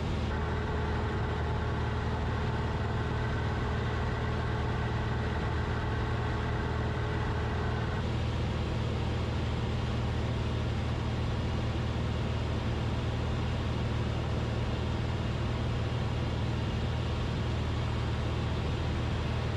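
Cessna 172RG's four-cylinder piston engine and propeller droning steadily in cruise. A set of steady higher-pitched tones sounds along with it for the first eight seconds or so, then stops.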